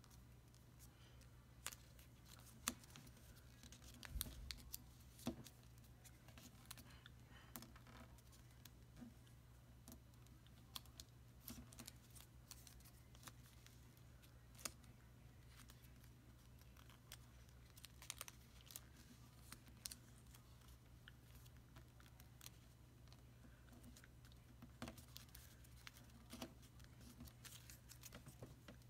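Faint crinkling and clicking of origami paper being folded and creased by hand, coming at irregular moments, over a steady low hum.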